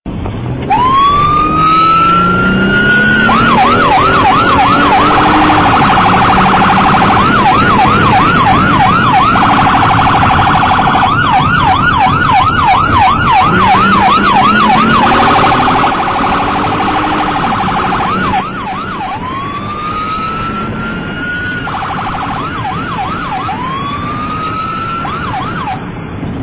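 Police car electronic siren cycling between a long rising wail and a fast yelp, loud and then a little quieter in the second half.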